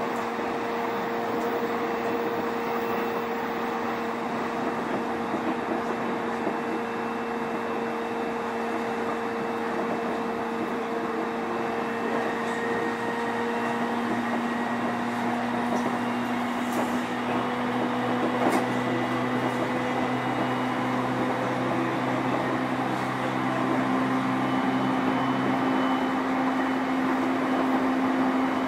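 Running noise inside a JR East E531 series electric train's motor car (MoHa E530) moving at speed: a steady hum of traction motors and wheels on rail, with a motor tone that climbs slowly in pitch and a few faint clicks.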